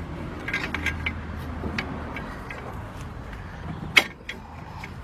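Light metallic clicks and clinks of a mounting bolt being worked by hand into a new front wheel hub assembly, with one sharp metal click about four seconds in, over a low steady hum.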